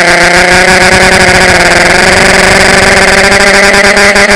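Electric motors and propellers of a small RC drone, a steady high buzz with several tones that waver and shift a little in pitch as the throttle changes, heard loud and distorted through the onboard camera's microphone.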